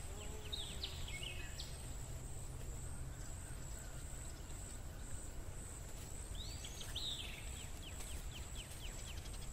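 Faint outdoor background with birds chirping: a few chirps in the first two seconds, then a quick run of short falling chirps about seven seconds in. Under them runs a steady high-pitched pulsing tone and a low hum.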